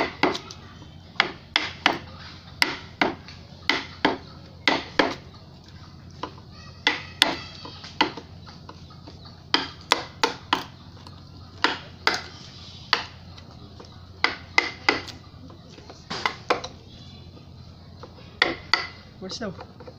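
Wooden mallet striking the handle of a wood-carving gouge as it cuts into a wooden panel: sharp knocks, often in quick pairs, with short pauses between runs of strokes.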